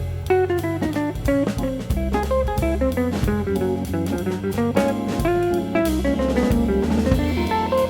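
Background music: plucked guitar over a drum kit with a steady beat.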